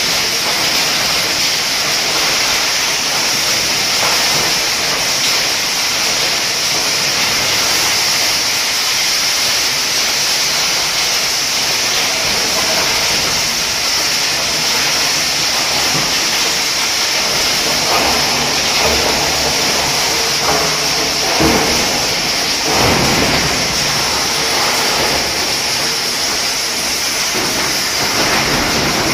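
Horizontal hammer mill running under load and crushing scrap aluminum engine block into small chips: a loud, steady rushing din with a strong hiss. Several heavier crashes come through in the second half as pieces are hammered.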